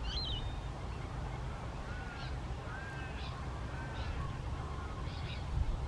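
Birds calling: a short high call near the start, then a series of brief arching whistled notes and chirps, over a steady low rumble.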